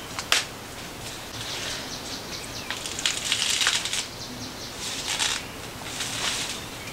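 Machete chopping into the fibrous trunk of a cây đao palm: two sharp strikes just after the start, then several rasping chops, about one a second, with leaves and fronds rustling.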